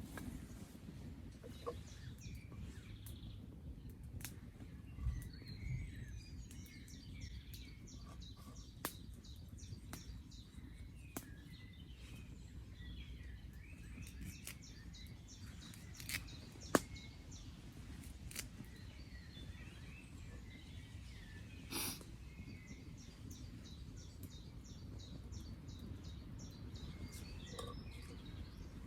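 Birds chirping and calling against a faint, low outdoor rumble, with a few sharp clicks or pops here and there; the loudest comes a little past halfway.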